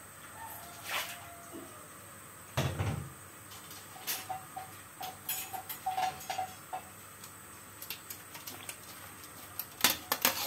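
Sparse knocks and clicks of kitchen utensils at a wok. A dull thump comes about two and a half seconds in, then light clicks and short pings. Near the end there is a cluster of sharp clicks as a perforated metal skimmer is brought to the aluminium wok.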